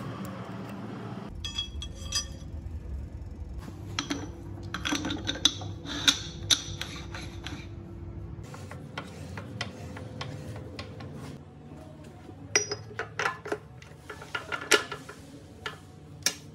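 Steel gears, shafts and synchro parts of a ZF 16S 1820 truck gearbox clinking and knocking against each other and the casing as they are fitted by hand. Some strikes ring briefly, over a steady low hum.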